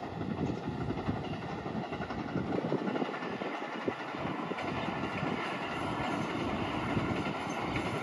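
A distant train passing along the line, a steady rumble of wheels on rails.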